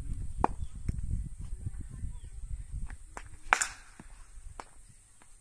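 A cricket bat strikes a ball with one sharp crack about three and a half seconds in, followed by a brief rustle. Before it there are a few lighter knocks over a low rumble.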